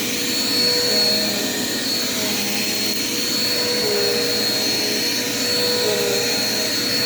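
Dirt Devil Quick Power vacuum cleaner running steadily: a constant motor whine with a high steady tone over a rush of air.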